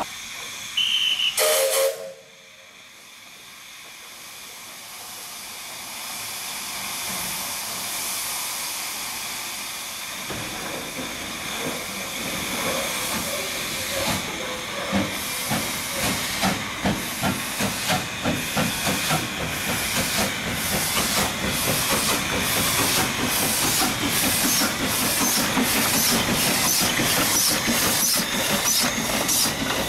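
C2-class narrow-gauge steam locomotive: a short whistle blast about two seconds in, then steam hissing that grows louder as the engine gets under way. Its exhaust chuffs come faster as it draws past.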